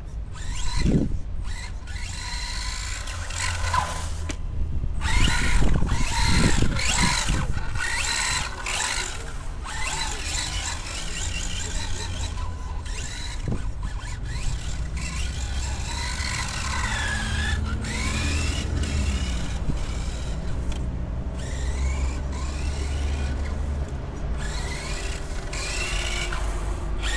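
Brushless electric motor of a Himoto Tanto 1/10 RC buggy whining, its pitch rising and falling again and again as the car speeds up and slows.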